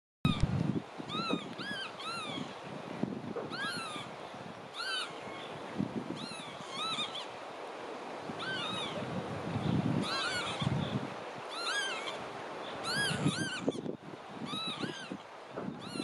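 Marsh sandpiper calling: short whistled notes that rise and fall, repeated every second or so, often two or three in quick succession, with irregular low rumbles underneath.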